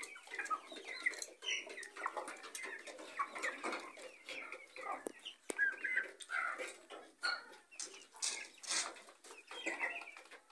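Chickens clucking, many short calls overlapping throughout.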